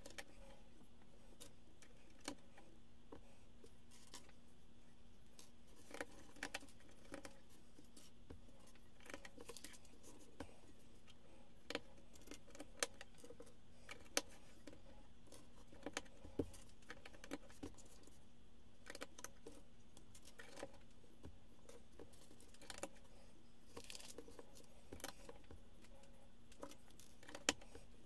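Small plastic Lego bricks clicking and clattering as they are picked up and pressed together, in scattered irregular taps with a few sharper snaps.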